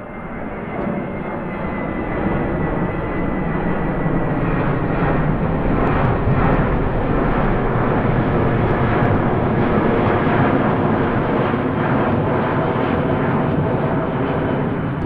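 Jet aircraft engine noise that swells over the first couple of seconds, with a faint falling whine, then holds as a loud, steady rushing sound.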